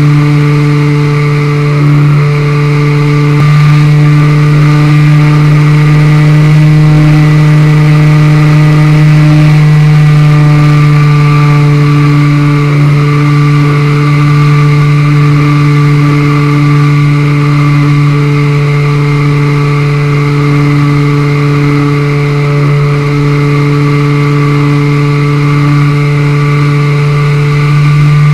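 An RC model plane's motor and propeller run loud and steady at a constant pitch in flight, picked up by a camera mounted on the plane, with rushing air.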